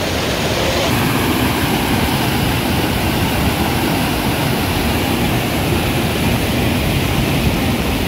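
Steady rush of a mountain stream flowing over rocks, close and loud, with no breaks.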